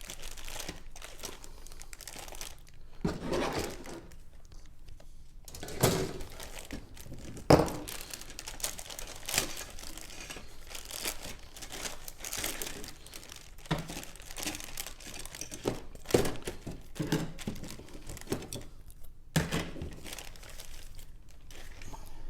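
Plastic bags of model kit sprues crinkling as they are handled, with a few sharp knocks of the plastic parts.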